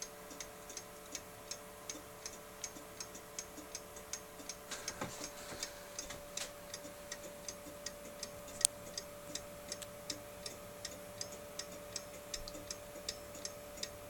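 John Walker 8-inch fusee clock ticking at a steady even beat, about three ticks a second, its escapement running on newly fitted replacement pallets. One tick a little past halfway is louder than the rest.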